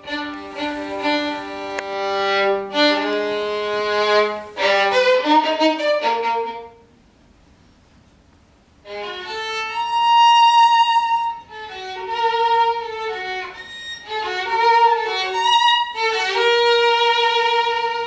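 Solo violin playing a slow piece in held notes. It stops for about two seconds a little past the middle, then comes back in a higher register.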